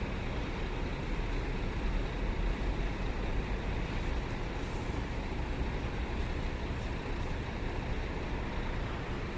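Intercity bus running as it pulls away from a stop, a steady engine and road noise with no sharp events.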